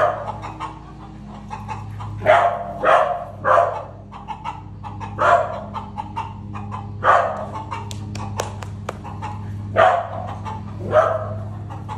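A corgi barking at chickens: about eight sharp barks spaced one to two seconds apart, a few in quick succession.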